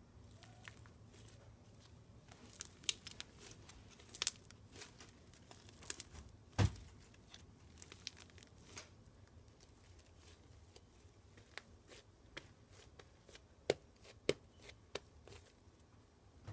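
Crunchy slime being handled by hand, giving off irregular crackles and snaps, with one louder thump about six and a half seconds in.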